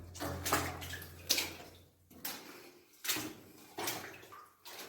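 Footsteps sloshing through water in a flooded mine passage, several steps about a second apart.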